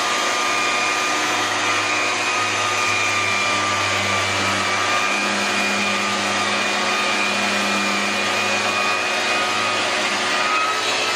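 Ridgid orbital drywall sander running together with its attached dust-extraction vacuum as the pad is slid over taped drywall joints: a steady motor noise with a faint constant whine.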